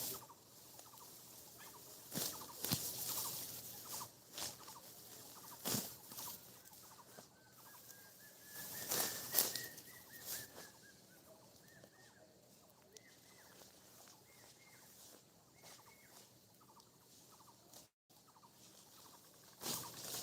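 Dry wheat stalks crunching and rustling in irregular sharp strokes as the crop is cut and handled, with a bird chirping a run of short notes through the middle.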